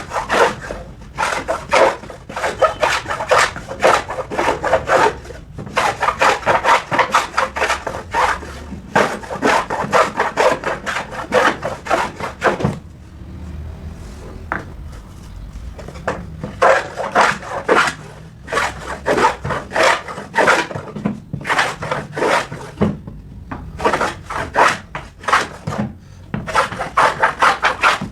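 A hand tool worked on wood in quick back-and-forth strokes, about four strokes a second, in several runs with short pauses, the longest about thirteen seconds in.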